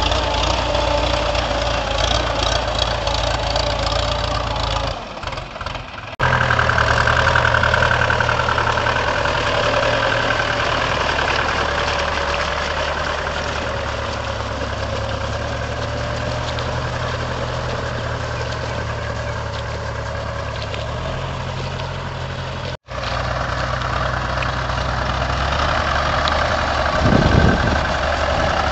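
Mahindra 475 DI tractor's four-cylinder diesel engine running steadily as it works through flooded paddy mud on cage wheels. The sound breaks off and resumes abruptly twice, about six and twenty-three seconds in.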